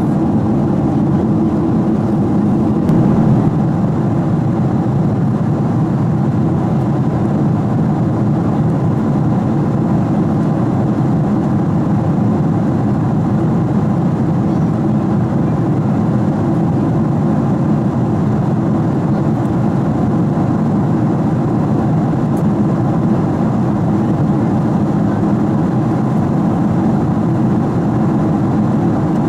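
Boeing 777-200 airliner cabin noise in flight: a loud, steady rumble that stays constant and unchanging.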